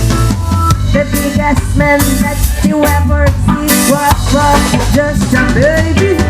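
Live band playing a reggae groove: drum kit keeping the beat over a heavy bass line, with short melodic notes from the instruments above.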